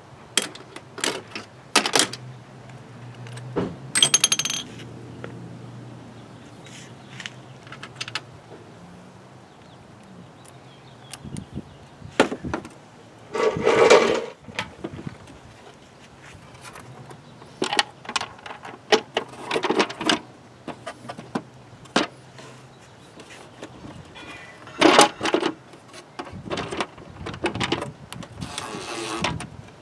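Scattered clicks, clinks and knocks of small metal parts and tools being handled during reassembly of the air intake, with a brief metallic ring about four seconds in.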